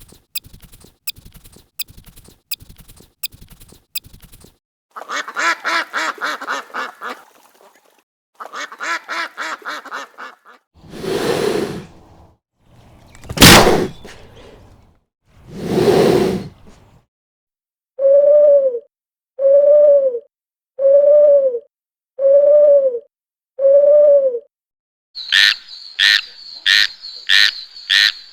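A string of different animal calls, one after another. First comes rapid clicking, then two buzzy runs of calls and three loud, noisy blasts. Five identical short calls follow about a second and a half apart, and a fast run of sharp, high calls closes it.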